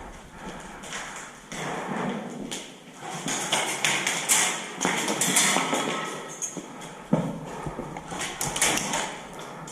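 Irregular footsteps and thuds with rustling, with a few sharp knocks, the sharpest about seven seconds in.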